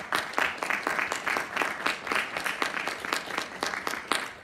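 Audience applauding, a dense stream of many hands clapping that begins to thin out near the end.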